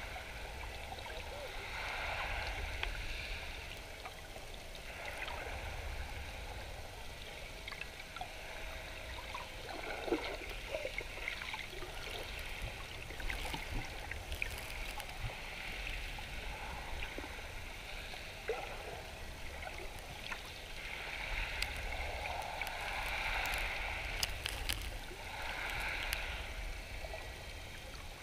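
Sea water heard underwater, just below the surface: a steady low rumble under a gurgling wash that swells and fades several times, with scattered faint clicks.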